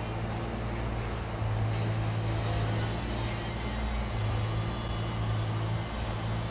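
An engine running steadily: a low drone that swells and eases a few times.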